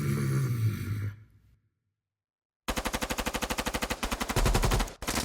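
Automatic gunfire sound effect: a rapid, continuous burst of about a dozen shots a second, starting suddenly after a brief silence, with a deep thump under it near the end. Before the silence a low sound fades out.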